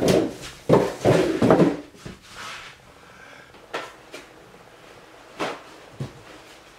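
Mouth and handling noises of someone eating a calzone close to the microphone. There are several loud short bursts in the first two seconds, then a few scattered sharp clicks.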